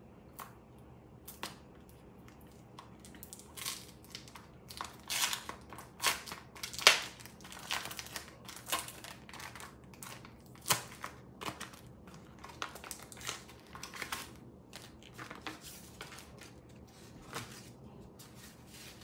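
Plastic packaging crinkling and crackling in the hands as a styling cape's packet is opened and the cape pulled out. The crackles come irregularly, the loudest about seven seconds in.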